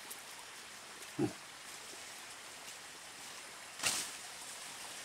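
A single short low grunt about a second in, then a brief burst of rustling foliage near the end, over a steady faint forest hiss.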